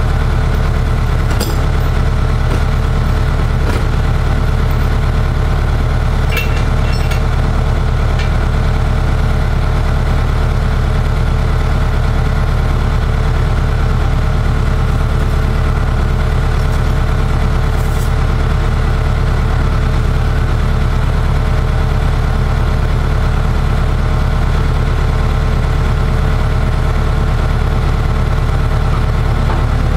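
An engine idling steadily, a constant low drone, with a few faint ticks over it.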